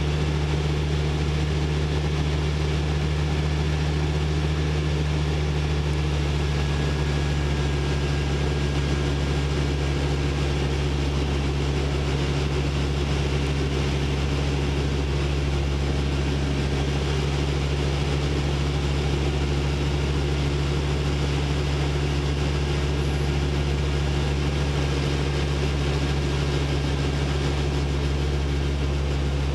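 Small aircraft's engine and propeller droning steadily in level cruise, heard from inside the cockpit, with no change in pitch.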